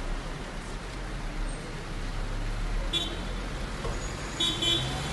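Road traffic passing through a junction, a steady noise with a low rumble. Two brief high tones cut in, one about three seconds in and a slightly longer one near the end.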